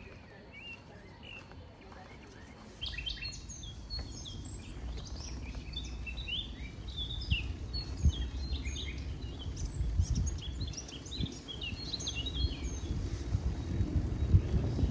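Wild songbirds singing, a dense mix of short chirps and trills that becomes fuller about three seconds in. A low rumble runs underneath and grows louder towards the end.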